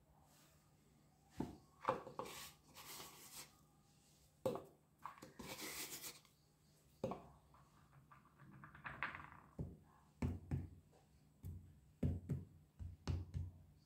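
Hands working soft bars of multani mitti (Fuller's earth clay) on a tray: irregular dull thuds as the bars are pressed and set down, with scraping and rubbing of clay and powder in between.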